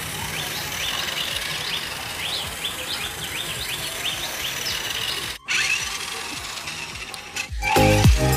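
Small electric drive motor and plastic gearbox of a toy RC rock crawler truck whining as it drives and turns on concrete, the whine rising and falling in pitch with the throttle. Background music with a beat comes in near the end.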